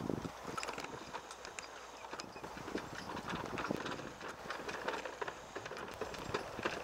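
A team of two Morgan horses walking on packed dirt, pulling a restored Mitchell wagon: irregular clip-clop of hoofbeats mixed with sharp knocks and rattles.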